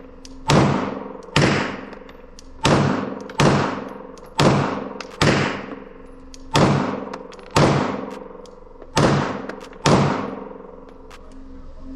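Ten 9mm pistol shots fired one after another, roughly one a second at an uneven pace, each followed by a long echoing tail.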